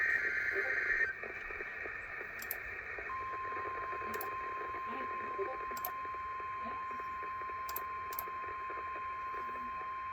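Emergency Alert System broadcast over a radio: a harsh, buzzing data burst of the SAME header ends about a second in. After a couple of seconds of radio hiss, the steady single-pitched attention tone starts and holds, with a few faint static clicks.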